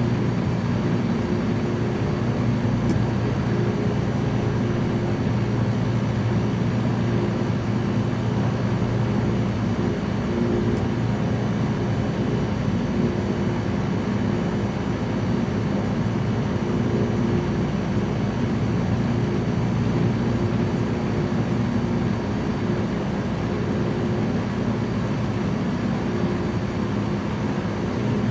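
Small light aircraft's piston engine and propeller running steadily in flight, an even hum with a constant pitch.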